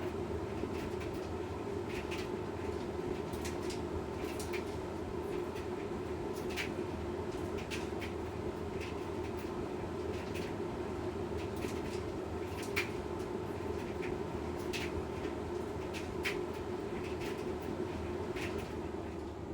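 Washing machine running its wash programme: a steady motor and drum hum with irregular light clicks, about one or two a second.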